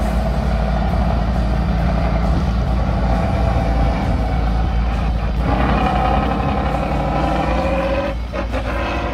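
Heavy off-road trial truck's engine working hard under load as it climbs a steep dirt slope, the revs rising about halfway through.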